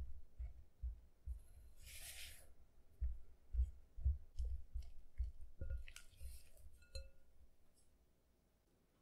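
Silicone spatula folding pancake mix and cocoa powder into thick chocolate batter in a bowl: soft dull knocks about twice a second, with two short scraping rustles, fading near the end.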